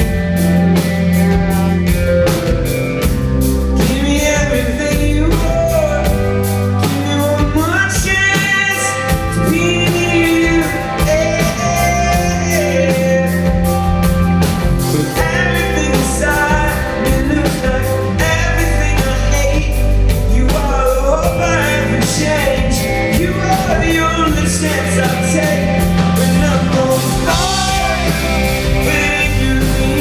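Live rock band playing a song: a man sings into the microphone over strummed acoustic guitar, bass and a steady drum beat with cymbals.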